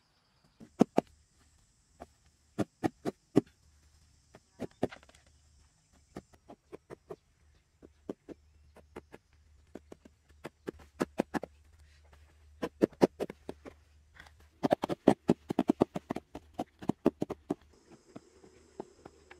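Grass clumps being planted into soil by hand: a run of irregular sharp taps and knocks, some in quick clusters, as the earth is pressed and patted down. Insects drone high and steady behind it during the first six seconds and again near the end.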